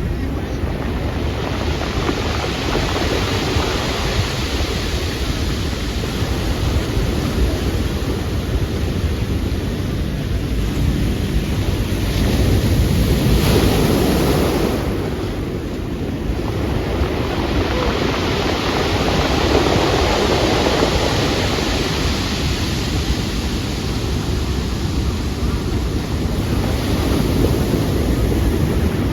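Pacific Ocean waves washing in, with the rush swelling and easing every several seconds, and wind buffeting the microphone.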